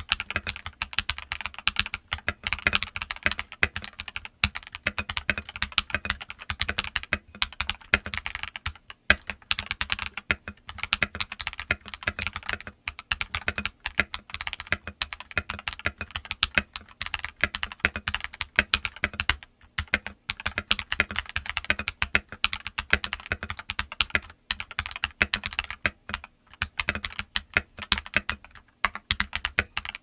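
Continuous fast typing on a stock Keydous NJ81 75% mechanical keyboard kit fitted with KTT Kang White linear switches and Cherry-profile keycaps: a dense, steady stream of keystroke clacks with only brief pauses.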